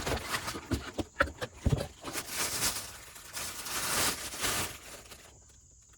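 Parts being handled by hand: several knocks and clicks in the first couple of seconds, then about three seconds of rustling that dies away near the end.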